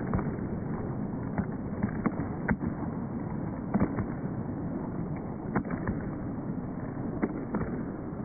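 Aikido practitioners being thrown and taking breakfalls on tatami mats: irregular sharp slaps and thuds of bodies and feet striking the mats, over steady room noise.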